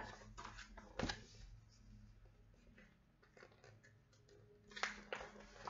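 Faint rustling and light taps of a picture book's paper pages being leafed through and handled, with a sharper tap about a second in and another near the end.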